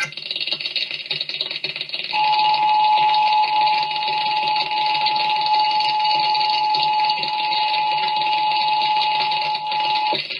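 Emergency Alert System attention signal: one long steady tone held for about eight seconds, starting about two seconds in, over a constant hiss.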